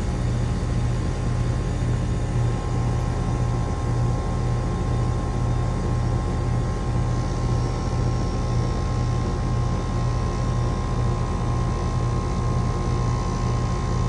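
Outdoor condensing unit of a 3-ton Goodman-built Amana central air conditioner running on utility power, a steady loud hum with a throbbing low drone. The compressor is under its normal running load of about 11 amps.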